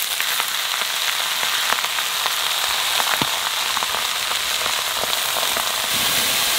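Shredded cabbage frying in hot oil in a wok: a steady sizzling hiss with scattered light crackles as the heap is added and turned.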